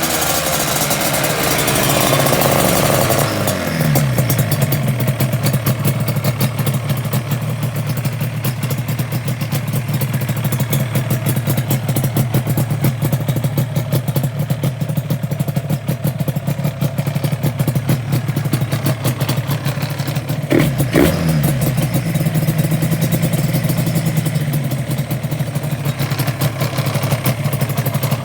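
Yamaha RZ250's two-stroke parallel-twin engine settling from a rev down to a steady idle, with one quick throttle blip about two-thirds of the way through. A light rattle around the crank area, which the owner suspects means worn crankshaft bearings.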